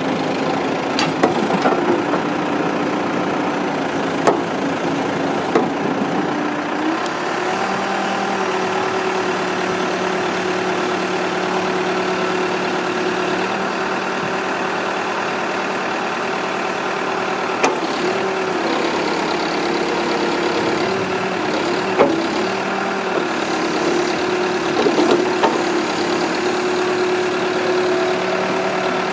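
The 2005 New Holland LB110B backhoe's diesel engine is running steadily. Its pitch steps up about a quarter of the way in and dips briefly a few times later. A few short clanks sound here and there.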